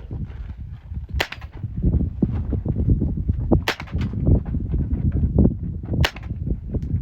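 Three sharp gunshots about two and a half seconds apart, over a steady low rumble.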